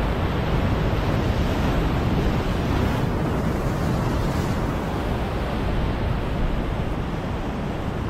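Ocean surf breaking and washing against a rock ledge, a steady rushing roar of white water, with wind rumbling on the microphone.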